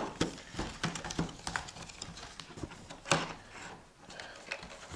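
A cardboard retail box being worked open by hand: scattered scrapes, taps and rustles as the inner packaging is slid out, with one louder scrape about three seconds in.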